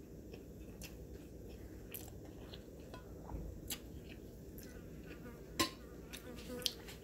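Faint steady low hum with a scattering of light clicks and taps from eating and handling tableware. The sharpest click comes about five and a half seconds in.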